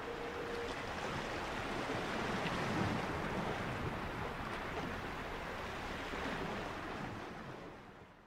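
Sea waves washing on the shore: an even, rushing surf noise that fades out near the end.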